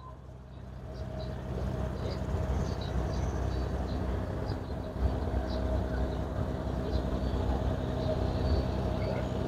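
Outdoor urban ambience: a steady low rumble of distant city traffic, with a faint steady hum and a few faint high chirps.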